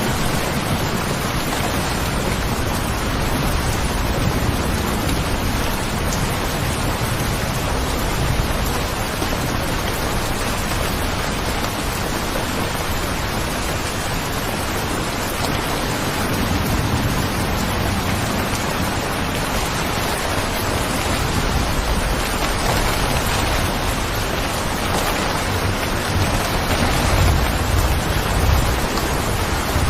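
Steady, heavy rain falling as a continuous hiss, with a low rumble swelling near the end.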